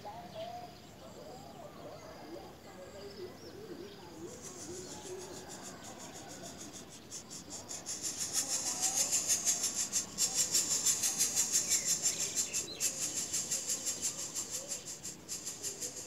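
Greater coucal chicks begging: a fast, high, rasping pulse, about four or five a second. It builds from about four seconds in and is loudest while the adult is at the nest feeding them.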